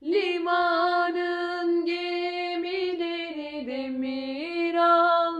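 An amateur singer's unaccompanied voice holding one long sung phrase with small ornamental turns, the pitch stepping down a little past the middle and back up near the end.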